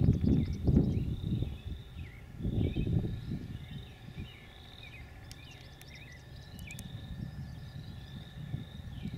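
Outdoor field ambience: bursts of low rumble in the first three seconds, then a steady high-pitched chorus of repeated chirps and short falling calls.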